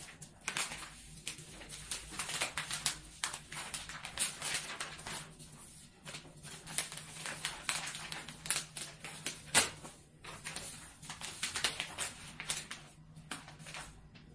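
Sheets of stiff wrapping paper rustling and crinkling as they are pleated and gathered by hand, in irregular crackles.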